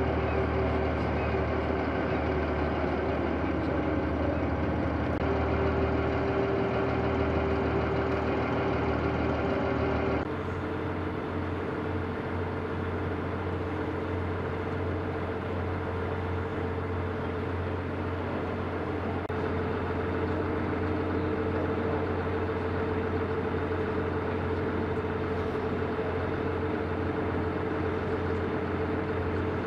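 Steady low engine drone with a constant hum, changing abruptly to a slightly quieter, different drone about ten seconds in.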